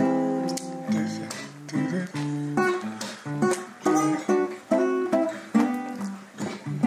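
Acoustic guitar strummed in a steady rhythm of about two to three strums a second, the chords changing as it goes, in an informal kitchen-table jam recording.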